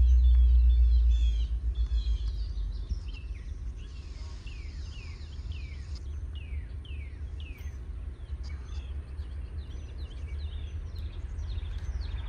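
Birds chirping, a long run of short downward-sweeping calls, over a low rumble that is loudest in the first second or so and then eases.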